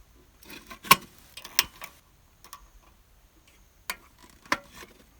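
A few short, sharp clicks and knocks of objects being handled, spaced irregularly. The loudest come about a second in and again near the end.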